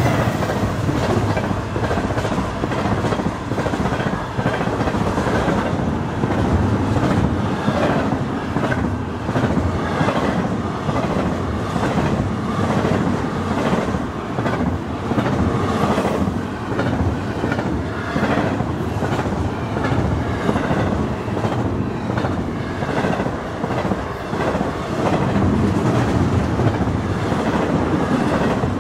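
Train cars rolling past on steel rails, with a steady run of wheel clicks over the rail joints.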